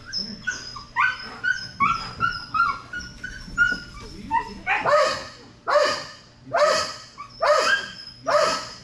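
A dog whining in short, high-pitched notes, then barking loudly about once a second, five barks in the second half.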